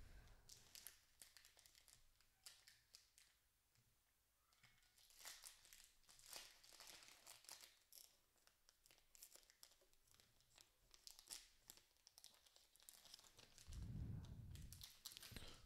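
Faint crinkling and tearing of a foil hockey trading-card pack wrapper as it is ripped open by hand, in short scattered crackles. A low muffled rumble comes in near the end.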